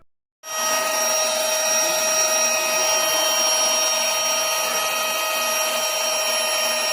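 Portable mini handheld car vacuum cleaner running steadily with a high whine over a rushing hiss, starting suddenly about half a second in.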